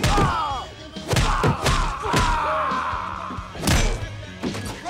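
A man screaming in a long, slowly falling cry over a run of heavy thuds of blows, the loudest thud near the end, with music underneath.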